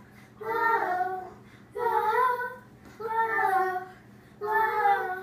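A child singing unaccompanied in four short repeated phrases, each about a second long with brief pauses between.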